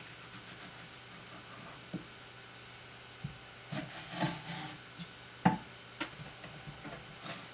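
A kitchen knife working through a sea bass fillet on a wooden cutting board: after a quiet start, soft scraping strokes and several sharp knocks of knife or fish on the board, the loudest about halfway through.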